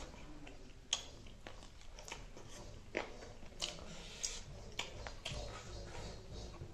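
Close-up eating sounds of a sauce-coated chicken wing being bitten and chewed: wet smacking with a run of sharp, irregular clicks.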